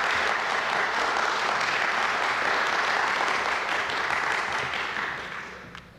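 Audience applauding, steady for several seconds and then dying away near the end.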